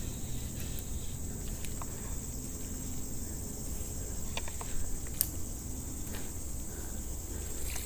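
Insects chirring in a steady high-pitched drone, with low rustling and a few faint ticks.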